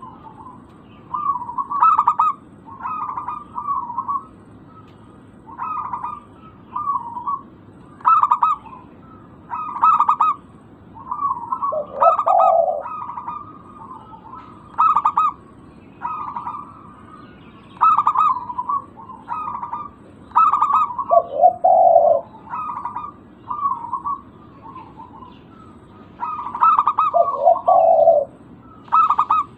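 Zebra doves (perkutut) cooing in short, quick staccato phrases repeated every second or two. Three times a lower, deeper pair of notes joins in.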